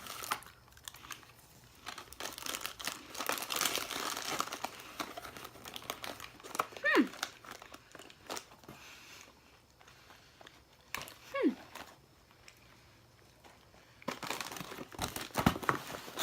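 Plastic snack packaging crinkling and rustling as it is handled, in bursts at the start and again near the end. Twice in the middle, a short high whine falls in pitch.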